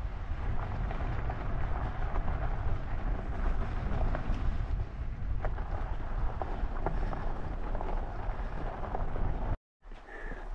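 Wind buffeting the microphone of a camera mounted on a bicycle being ridden through soft sand, a steady rumble with scattered clicks and rattles from the bike. The sound cuts out for a moment near the end.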